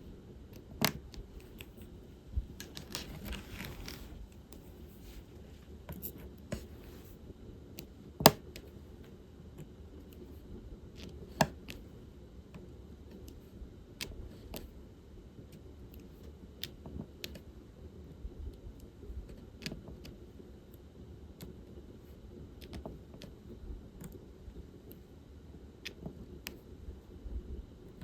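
Irregular sharp clicks and taps of diamond painting work: a drill pen picking up and pressing resin drills, and plastic bead trays being handled. About three seconds in there is a brief scratchy rustle.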